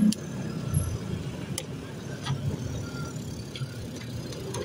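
Steady low rumble of background road traffic, with a few light clicks and knocks as a plastic pet carrier's door is handled.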